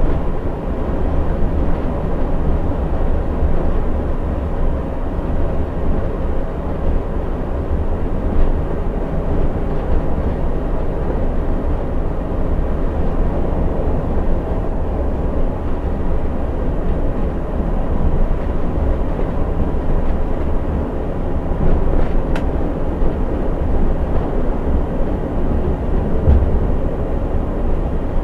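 Steady rumble of a coach bus cruising at highway speed, heard from the driver's cab: engine and tyre/road noise, strongest in the low bass.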